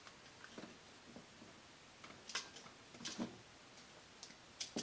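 Faint, scattered clicks and taps of wire leads and crimp connectors being handled and fitted to the terminals of a rotary cam switch in a small metal project box.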